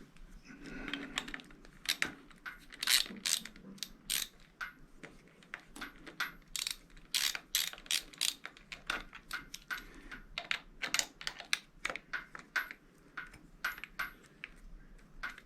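Ratchet clicking in short, irregular runs as screws on the motorcycle's handlebar are tightened, with small metallic clinks of the tool.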